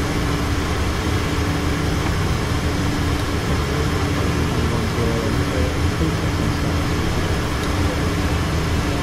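Steady engine and airflow noise inside a Learjet cockpit in flight: a constant low hum under an even rushing hiss.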